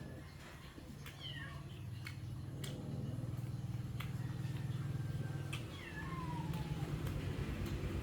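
A cat meowing, a few high falling cries over a steady low hum, with a few sharp clicks.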